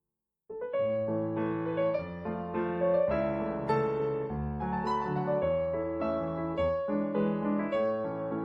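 Background piano music starting after half a second of silence, a melody of distinct notes over chords.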